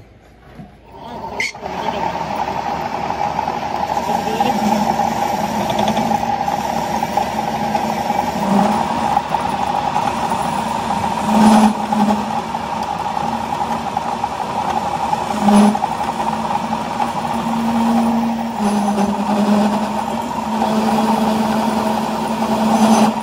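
Metal lathe starting up about a second and a half in, then running steadily as its tool cuts into the steel end of a spinning truck axle, with a couple of brief louder swells while cutting.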